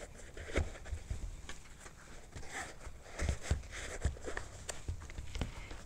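Athletic shoes being handled on a tabletop as an insole is pushed in and the laces are worked: faint rustling with a few light knocks.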